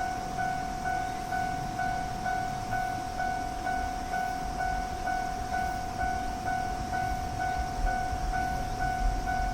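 Japanese level crossing's electronic warning bell ringing steadily, about two strikes a second, signalling an approaching train. Toward the end the low rumble of the train builds under the bell.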